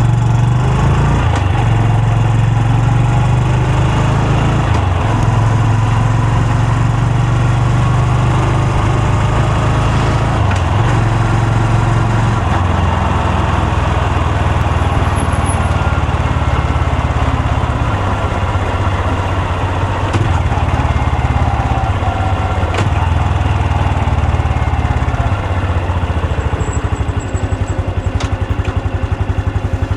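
Honda Super Cub C125's single-cylinder engine and exhaust running under way, its pitch stepping up and down a few times in the first half. In the second half it settles lower, with the slower beat of the firing pulses clearer near the end.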